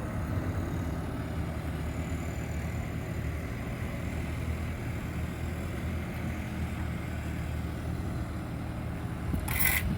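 Steady low rumble of street traffic, engines running and idling. Just before the end come a couple of short, harsh noisy bursts.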